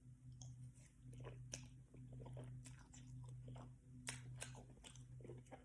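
Faint chewing of beef lo mein noodles and vegetables, with small wet mouth clicks scattered throughout, over a low steady hum.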